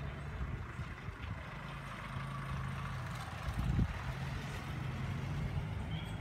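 Bus diesel engine pulling uphill through a hairpin bend, a low steady hum under road and air noise, with a short low thump about four seconds in.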